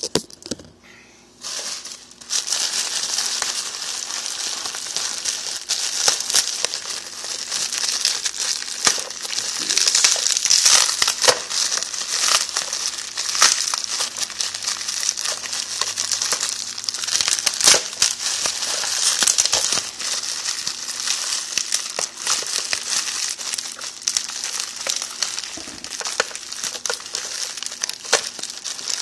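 Plastic packaging crinkling and crackling continuously as it is handled and unwrapped by hand, starting about two seconds in.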